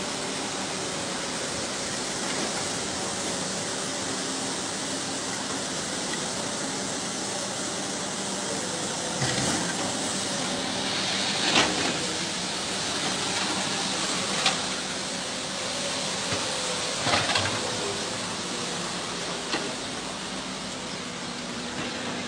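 Steady rushing hiss of fast-flowing floodwater, with a few short sharp knocks in the second half.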